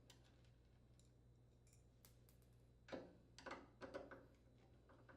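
Faint clicks and scrapes of a screwdriver working the screws out of a dryer door hinge, in a few short bursts about three to four seconds in; otherwise near silence.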